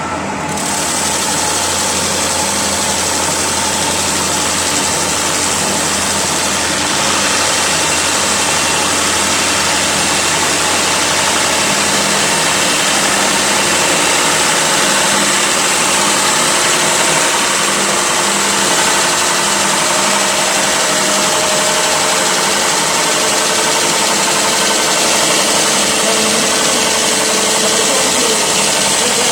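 CNC wood lathe turning a large wooden bowl: the machine runs steadily with a loud, even hiss of cutting, which grows louder about half a second in.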